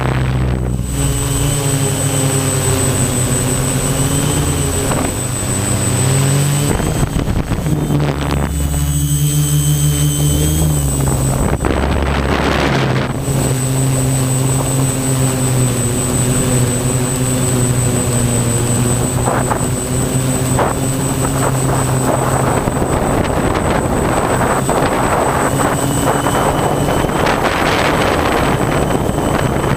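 Quadcopter's electric motors and propellers buzzing, heard from the camera on the drone itself. Their pitch steps up and down several times as the motors speed up and slow down.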